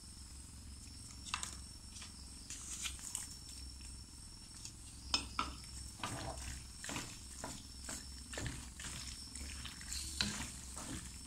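Wooden spatula stirring and tossing penne pasta in a stainless steel wok, with irregular scrapes and light knocks against the pan that come more often from about halfway through, over a steady low hum.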